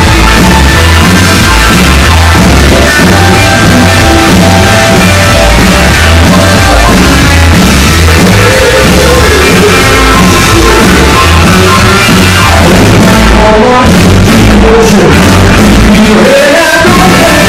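Live rock and roll band playing loud through a PA: electric guitars, drums and a male lead singer.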